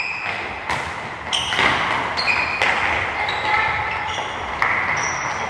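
Soccer balls being kicked and bouncing, a handful of sharp knocks a second or two apart, with brief high squeaks in between.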